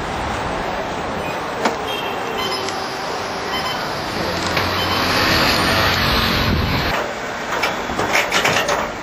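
Steady vehicle engine and street-traffic noise that swells from about four seconds in and drops off suddenly at seven seconds. Near the end comes a quick run of sharp metallic clicks and clinks, a ratchet tie-down strap being worked.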